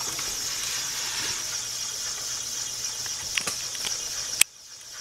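Homemade pentabellow compressed-air engine running with its propeller spinning: a steady hiss of air, with a few faint clicks. Near the end it breaks off suddenly with a sharp click.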